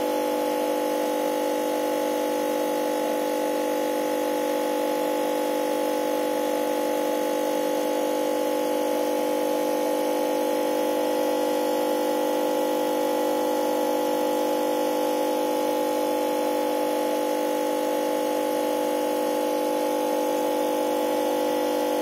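Aquarium air pump running with a steady electric hum made of several held tones, unchanging throughout.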